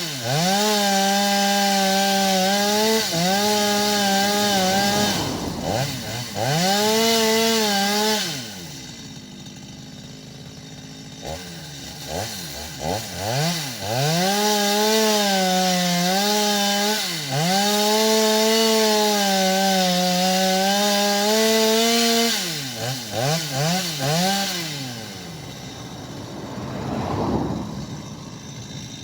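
Two-stroke chainsaw cutting wood at full throttle, its pitch sagging as the chain bites into the cut. It drops to idle about a third of the way in, is blipped a few times and goes back into the cut, then after a few more quick blips near the end settles back to idle.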